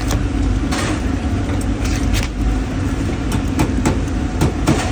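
A steady low mechanical rumble, with scattered short clicks and knocks over it.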